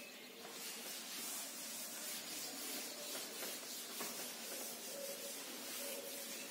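Chalkboard duster wiping chalk off a green chalkboard: a dry rubbing hiss in repeated back-and-forth strokes.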